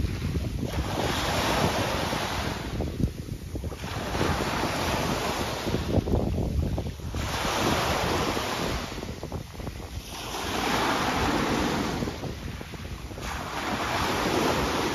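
Small waves breaking and washing up a pebble beach, the surf swelling and fading about every three seconds. Wind rumbles on the microphone underneath.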